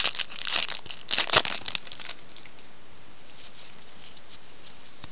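Crinkling of a trading-card pack wrapper being handled and opened, in quick crackly bursts over the first two seconds, then only faint room hiss.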